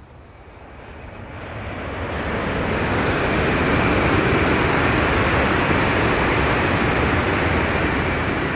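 Tokaido Shinkansen bullet train passing at speed: a rushing noise of the train and its wheels on the rails that swells over about three seconds, holds with a faint high whine, and begins to fade near the end as the train draws away.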